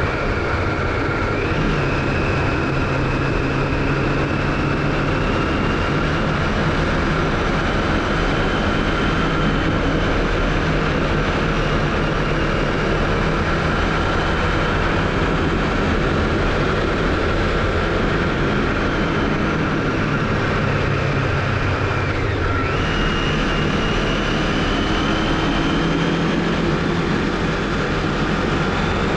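2007 Honda CBF500's 499 cc parallel-twin engine running under way, its pitch climbing slowly as the bike gathers speed. There is a brief dip in revs about two-thirds of the way through, then the pitch climbs again, with steady wind and road noise underneath.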